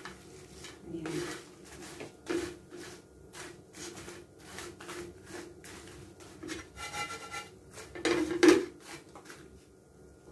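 Spatula stirring dried anchovies (dilis) in a wide frying pan: repeated dry scraping and rustling strokes, about two a second, with the loudest stroke near the end.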